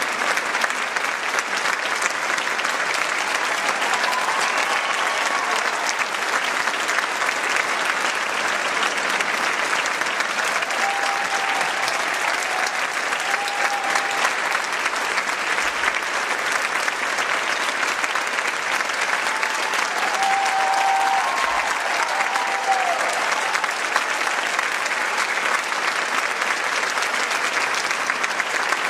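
Theatre audience applauding steadily in a dense, even wash of clapping, with a few brief shouts rising over it about four seconds in, in the middle, and again about twenty seconds in.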